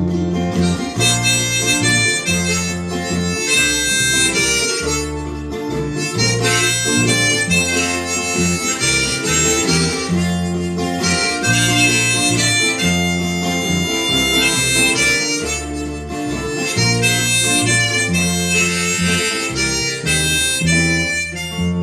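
Rack-mounted harmonica playing an instrumental solo over a strummed acoustic guitar and an electric bass line, in a country style.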